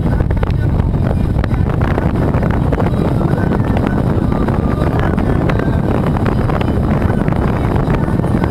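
Steady wind noise on the microphone of a camera on an open boat at sea, a constant low rumble with no clear engine pitch in it.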